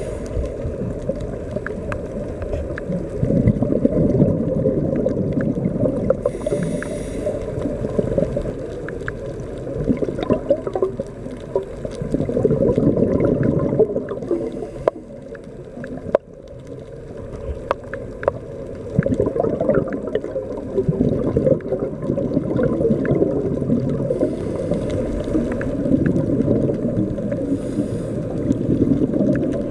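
Muffled underwater rumble and gurgle of a diver's exhaled bubbles, heard through a waterproof camera housing, swelling and fading every few seconds. Scattered small clicks, and a brief hiss twice.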